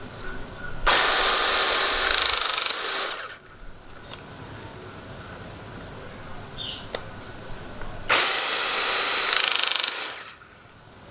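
Battery-powered hydraulic cutting/crimping tool's motor and pump running twice, each time for about two seconds with a steady high whine, then stopping. A faint click comes between the two runs.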